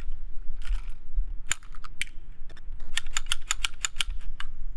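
Sharp metallic clicks from hands working a Hi-Point C9 pistol whose slide is not going all the way into battery. A few separate clicks come first, then a quick run of about eight clicks near the end.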